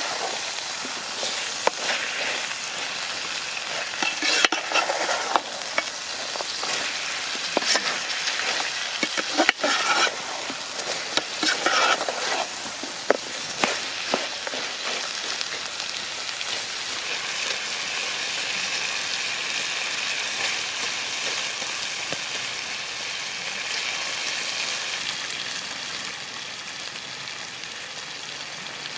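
Chicken sizzling in a hot pan. In the first half it is stirred, giving repeated scraping strokes over the hiss; after that the sizzle runs on smoothly.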